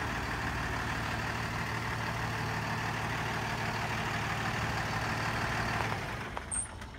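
Cummins ISB inline-six diesel of a 2012 Freightliner M2 dump truck idling steadily. The sound drops away about six seconds in, with a brief click just after.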